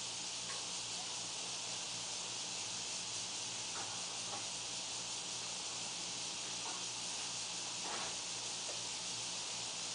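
Steady background hiss with a few faint, short ticks scattered through it.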